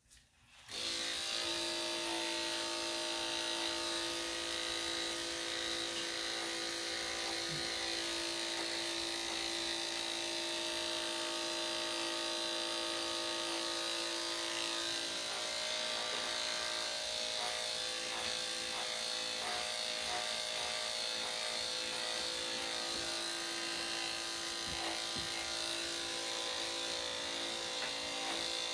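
Electric dog grooming clippers switched on just under a second in, then running steadily with an even motor buzz.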